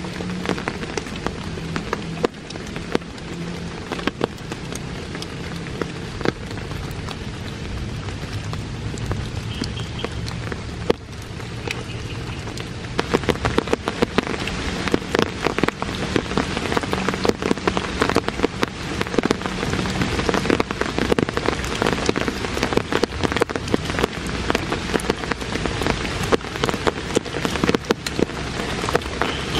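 Steady rain falling in a forest, pattering on leaves and the wet ground with many close, sharp drop ticks. The rain grows heavier and louder about halfway through.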